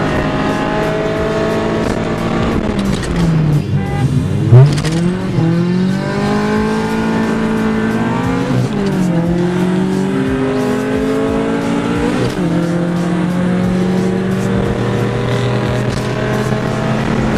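A car engine pulling hard through the gears in a street race: the revs climb, fall back sharply at each shift about three times, then hold high and steady. There is a sharp loud knock about four and a half seconds in.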